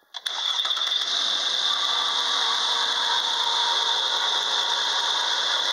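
Volkswagen Touareg 3.6 VR6 (CMTA) engine idling, heard close over the open engine bay: a steady, even, hissing whir that comes in a moment after the start.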